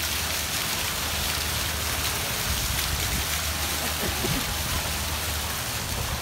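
Fountain jets splashing into a shallow pool: a steady, even hiss of falling water, with a low hum underneath.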